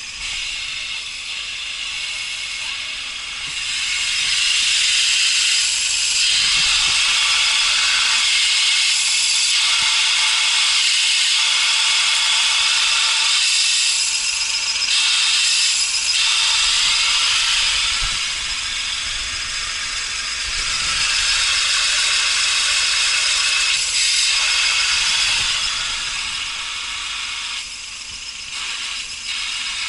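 Suzuki Carry truck's clutch release bearing making an abnormal high, hissing whir, growing louder for long stretches and easing off in between: the sign of a failing release bearing.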